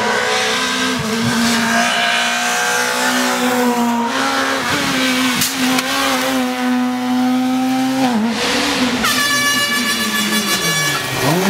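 Rally car engines running hard at high revs on a special stage, their pitch held fairly level, then dropping away. Near the end an air horn blows once for about two seconds.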